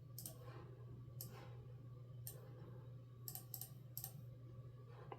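About six faint, scattered clicks from operating a computer's mouse and keyboard, over a low steady hum.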